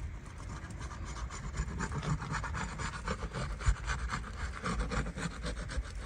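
Asphalt roof shingles being pried loose, a tool scraping under the tabs as the glued sealant strips tear, with a dense, irregular crackling scrape.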